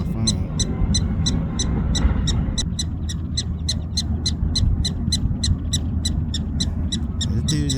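Prairie dogs calling: a fast, even string of short, high chirps, about four a second, typical of their repeated alarm bark.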